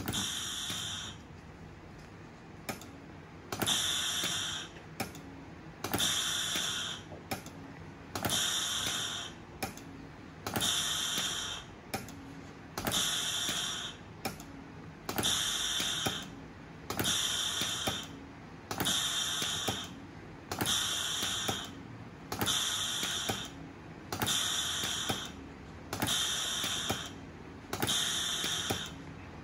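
Low-cost medical ventilator's mechanism cycling: a whirring stroke about a second long, with clicks, repeating steadily about every two seconds, each stroke one delivered breath.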